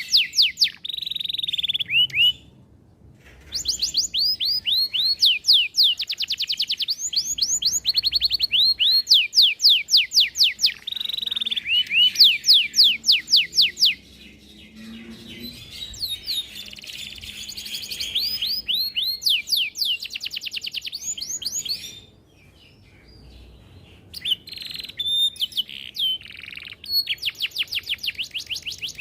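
Domestic canary singing a long song of fast rolling trills, each made of rapidly repeated, high sweeping notes. The song breaks off briefly about three seconds in and again past the twenty-second mark.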